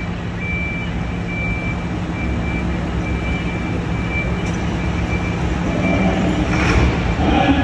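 Track-preparation machinery engines running steadily, with a faint high beeping that comes and goes. The level swells near the end.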